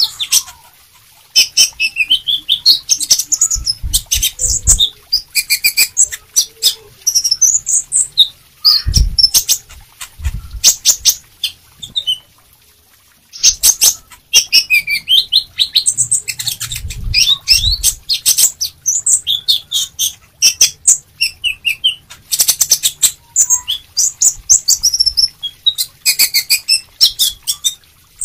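Caged male sunbird singing vigorously: rapid, high twittering phrases and trills in bursts, with short pauses about a second in and near the middle. Sharp clicks run through the song, and there are a few low thumps.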